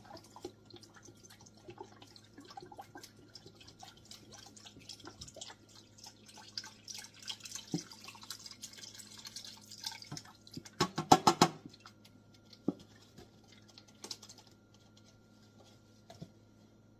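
Chicken broth poured from a carton into the metal inner pot of an electric pressure cooker, trickling and dripping, with a stream of pouring in the middle. A cluster of loud knocks comes about eleven seconds in.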